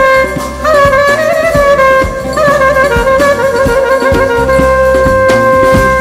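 Clarinet playing an ornamented solo melody in the instrumental break of a Turkish folk song, over band accompaniment with percussion and bass; about halfway through it settles on a long held note.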